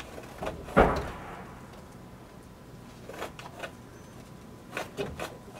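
A pencil tracing a curve around a round plastic cap held on a wooden board: a knock on the board about a second in, then faint scratching and a few light taps.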